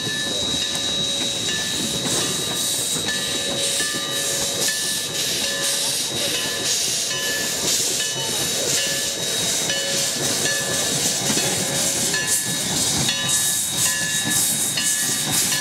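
Narrow-gauge 4-6-0 steam locomotive No. 152 working past with its cylinder cocks open: loud steam hiss with regular exhaust chuffs, and a thin steady high tone under it.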